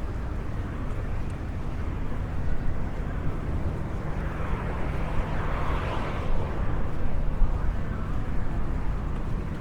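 Outdoor urban ambience with a steady low rumble, and a vehicle passing that swells and fades about halfway through.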